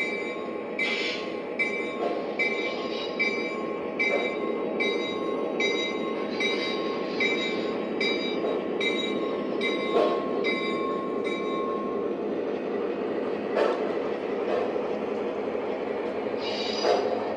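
Lionel O-scale C420 model diesel locomotives running along the track: a steady rumble of motors and wheels. A ringing tone repeats about every 0.8 s until roughly two-thirds of the way through.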